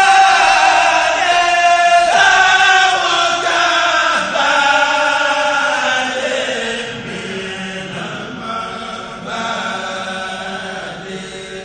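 A Mouride kourel, a group of men, chanting a khassida in unison without instruments, voices amplified through microphones. The notes are long and gliding, and the chant grows softer after about six seconds.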